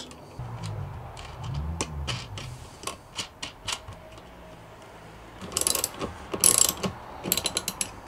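Socket ratchet wrench clicking as a nut is run down onto a busbar terminal stud: a few separate clicks at first, then three quick runs of clicking in the second half.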